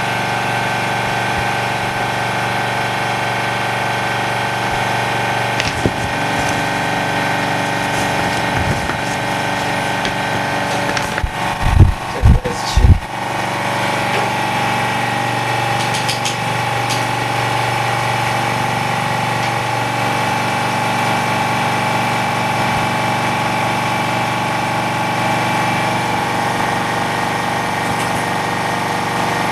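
Steady mechanical hum of an OCA bubble remover machine running during its de-bubbling cycle, with a few loud knocks about twelve seconds in.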